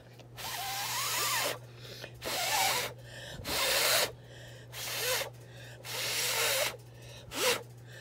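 A person blowing puffs of breath onto wet watercolor paint, about seven puffs of up to a second each, some with a faint whistle in them. The breath pushes the wet paint to spread and streak down the paper.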